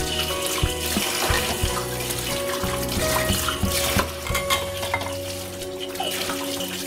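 Tap water running into a stainless-steel sink as dishes are washed by hand, with scattered clinks of cups and a steel tumbler being handled and set down. Soft background music with held notes plays underneath.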